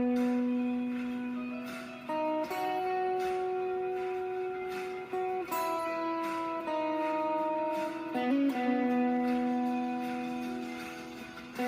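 Electric guitar played through a Bogner Überschall amplifier: long sustained notes and chords that change every second or two, with vibrato on a held note about seven seconds in.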